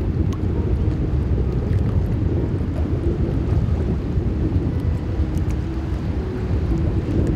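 Outdoor wind on the microphone beside open lake water: a steady low rumble.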